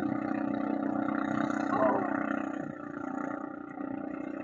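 Taal Volcano erupting: a steady, continuous rumble, with a brief voice heard about two seconds in.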